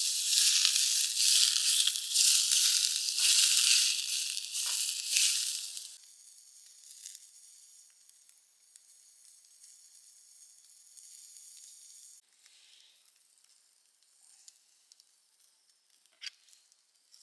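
Sausages sizzling in a hot frying pan: loud for about six seconds, then suddenly much fainter, and fainter still about twelve seconds in, with a few light clicks near the end.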